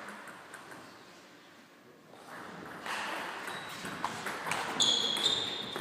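A table tennis serve and rally: the ball clicks sharply off the bats and the table several times in quick succession in the second half, with a high ringing ping near the end.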